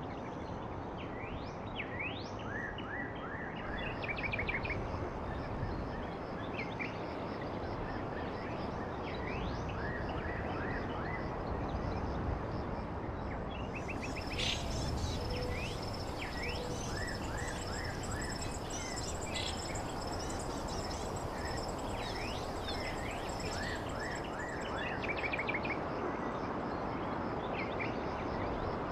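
Birds chirping and calling in quick series of short rising notes and trills over a steady background hiss. A thin, high, steady tone joins about halfway through and stops a few seconds before the end.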